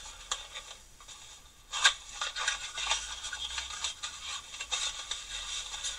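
Small metal tools being handled and moved about in a workshop drawer: scattered clicks, light scrapes and rattles, with one sharper knock about two seconds in.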